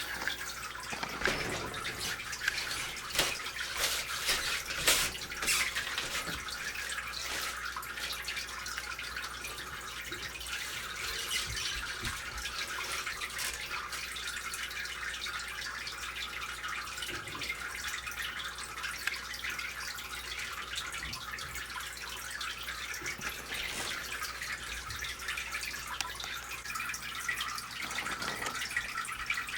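Aquarium water trickling and splashing, a steady burble with a run of louder drips and splashes in the first few seconds.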